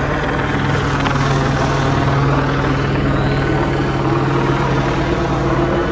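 A loud, steady engine drone with a constant low hum, running without a break.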